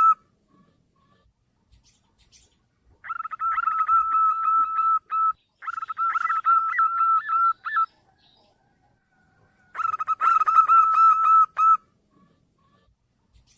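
Zebra dove (perkutut) song: three bouts of quick, pulsed cooing notes on a steady pitch, each about two seconds long, with short pauses between them.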